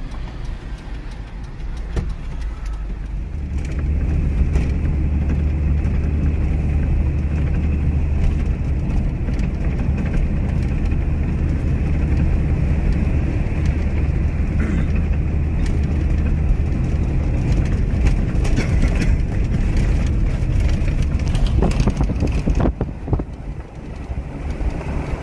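Hino truck's diesel engine running on the move: a steady low drone with road noise, getting louder about three and a half seconds in as the truck picks up speed.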